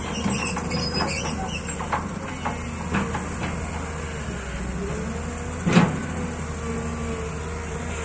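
Crawler excavator's diesel engine running steadily with a held whine, its steel tracks clanking as it drives toward the listener. There is one louder knock about six seconds in.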